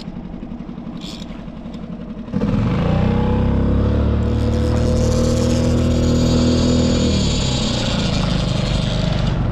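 Small outboard motor on a Solo Skiff, running under way while trolling, then revving up sharply about two seconds in, its pitch rising and then holding steady at the higher speed, easing off slightly near the end.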